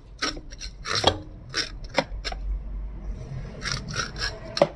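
Kitchen knife scraping inside the belly cavity of a gutted wolf herring, clearing blood from along the backbone: a run of short, irregular scrapes.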